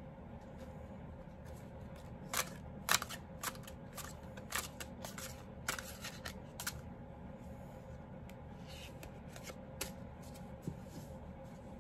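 A deck of cards being shuffled by hand: a run of sharp card snaps and slaps from about two to seven seconds in, then a couple more near the end, over a steady low hum.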